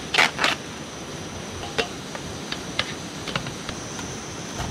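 Food preparation by hand: a short crinkly rustle in the first half second, then scattered light clicks and taps of a knife and utensils on a plate and a metal tray. A faint steady high-pitched tone runs underneath.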